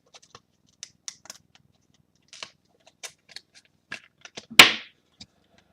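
Trading cards and their packaging being handled on a table: scattered light clicks and taps, with one sharp, loud snap about four and a half seconds in.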